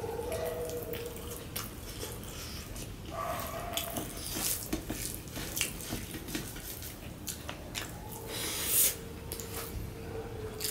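Close-up eating sounds: wet chewing and lip smacks while fingers mix rice and mashed bhorta on a steel plate, with scattered small clicks.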